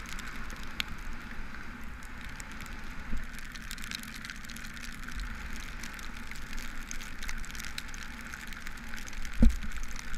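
Steady wet-road and rain noise of a bicycle ride in the rain: tyres hissing on the wet pavement and rushing air, with many small ticks of raindrops hitting the camera. A single low thump, the loudest sound, comes near the end, with a smaller one about 3 seconds in.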